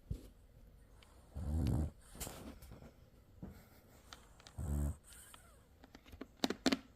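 French bulldog snoring in its sleep: two low snores about three seconds apart, the breed's usual snoring. A few sharp clicks come near the end.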